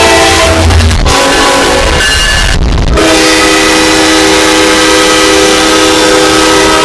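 Train horns blasting, boosted so far that they are heavily distorted. One horn chord cuts off about a second in, and after a jumbled stretch a new several-note horn chord starts about three seconds in and holds steadily.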